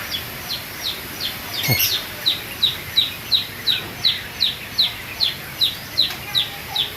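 A bird chirping over and over, short high chirps that drop in pitch, about three a second. About two seconds in there is a brief lower call that falls in pitch.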